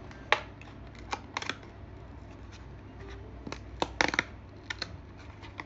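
A small cardboard box being handled and pulled open along its tear line: scattered sharp crackles and taps of the card, with a quick cluster about four seconds in.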